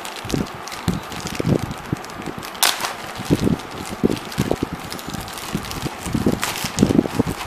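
Plastic courier mailer bag being torn open and crumpled by hand: irregular crinkling and rustling with low handling bumps, and a sharper rip-like crackle about two and a half seconds in and again about six and a half seconds in.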